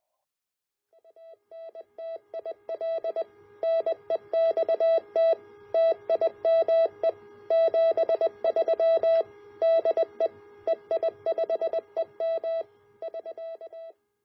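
Morse code (CW) tone from an HF transceiver, a single note keyed on and off in short and long elements. It starts faint about a second in, grows loud over the next few seconds and stops just before the end.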